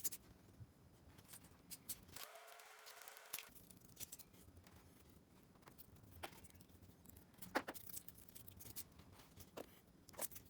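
Faint, sparse crinkles and small clicks of aluminium foil shielding being peeled and torn off the twisted wire pairs of a Cat 7 network cable.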